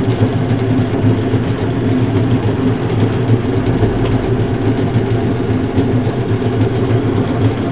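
Small flat-belt metalworking lathe running in forward, driven by a single-phase electric motor through a countershaft and cone pulley: a steady mechanical hum with belt and pulley rumble.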